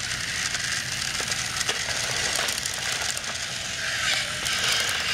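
Battery-operated TrackMaster toy engines' motors and gears running on plastic track, a steady mechanical whir with rapid small clicks as they labour up the inclined section. A higher whirring comes in about four seconds in.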